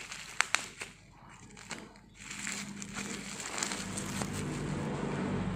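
Plastic packaging of a parcel crinkling and rustling as it is handled and cut open with a utility knife, with a couple of sharp clicks about half a second in. From about two seconds in the rustling gets louder and denser, with a low steady hum underneath.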